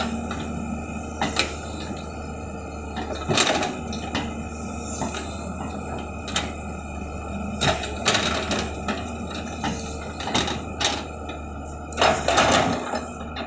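Earthmoving machine at work: its engine runs steadily under irregular sharp knocks and scrapes, with the loudest cluster of knocks near the end.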